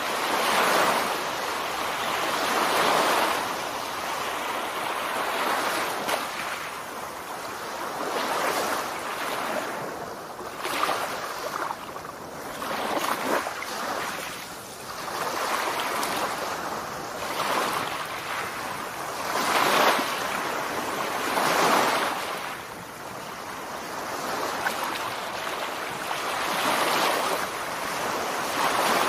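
Surf washing onto a sandy beach: a steady rush of small waves that swells and fades every few seconds.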